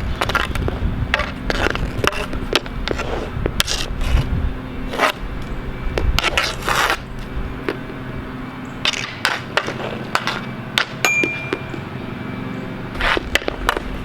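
Street hockey being played on pavement: sticks clacking and scraping on the ground, with irregular sharp whacks of shots and passes. A short ringing ping comes about eleven seconds in.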